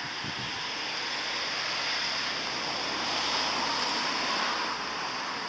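Steady hiss of rain falling on the wet ground and foliage, swelling a little for a second or so past the middle.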